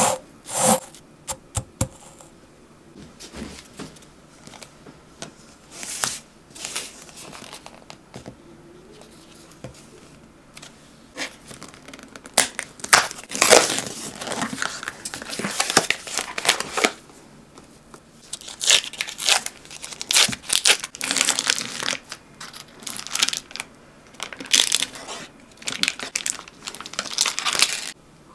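Cookies being crushed into fine crumbs, their wrapping crinkling as they crack, in irregular spells that grow louder and busier from about halfway through.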